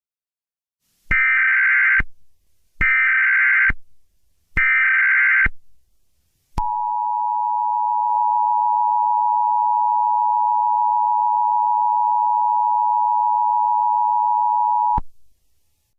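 Emergency Alert System tones: three short bursts of SAME header data tones, then the steady two-tone EAS attention signal held for about eight seconds, cutting off abruptly.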